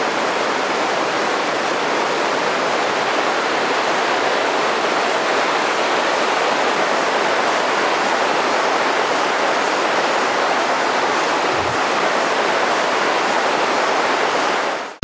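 Steady, loud rush of water in the Itajiki River, a jungle mountain stream, from rapids or a small fall close by.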